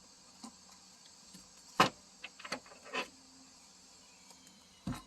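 Tarot cards being handled: a few short taps and clicks as cards are moved through the deck and set down, the loudest about two seconds in, over a steady high chirring of insects.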